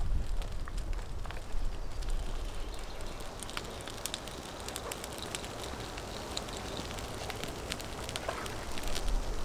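Small campfire of dry sticks crackling, with scattered sharp snaps and pops.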